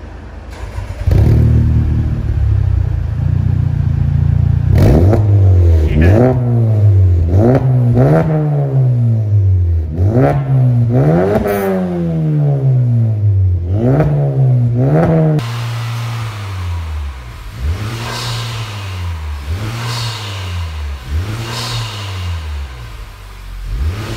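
Honda Civic Type R FK8's turbocharged 2.0-litre four-cylinder starting about a second in, then revved in a series of short blips through a custom 3-inch decat exhaust with a single centre silencer. About two-thirds of the way through, it cuts to the same car on its stock triple-tip exhaust, revved in quicker, quieter blips.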